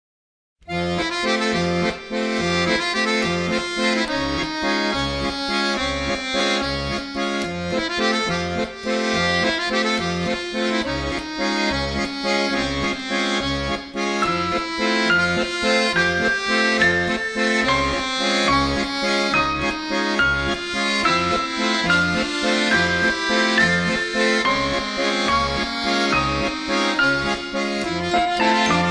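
Accordion music with a steady bass beat, starting about half a second in.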